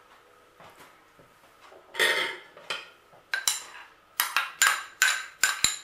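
Kitchenware clinking as a small glass bowl of sweet corn is emptied into a metal cake tin: first a soft rustle as the kernels drop, then a quick run of about eight sharp, ringing clinks of glass and metal knocking together in the second half.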